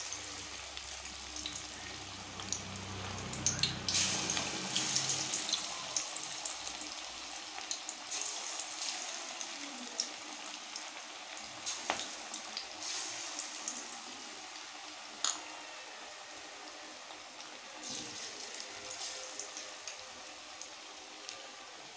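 Marinated chicken 65 pieces deep-frying in hot oil: a steady sizzle with sharp pops now and then, slowly getting a little quieter.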